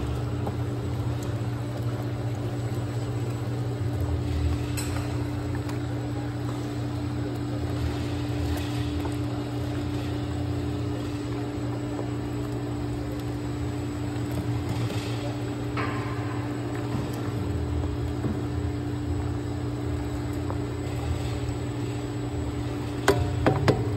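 Jacketed paddle-ribbon blender running: a steady motor-and-drive hum with a low drone and a constant higher tone as the paddles turn. A few sharp knocks come near the end.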